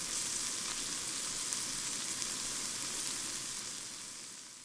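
Whole prawns frying in a pan: a steady sizzle with faint crackles, fading out near the end.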